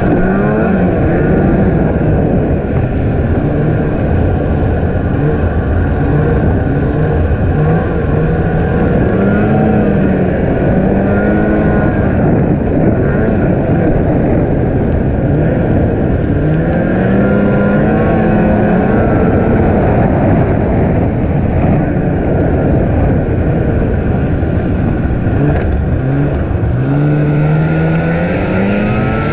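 Snowmobile engine running under the rider's throttle, its pitch rising and falling several times as it speeds up and slows along the track, over a steady rush of track and running noise.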